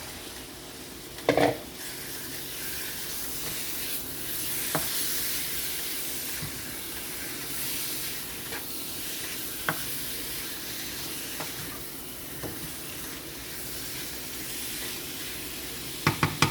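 Seasoned chicken frying in hot oil and curry powder in a pot: a steady sizzle, with a loud knock about a second in and small clinks of a utensil stirring against the pot, and a few knocks near the end.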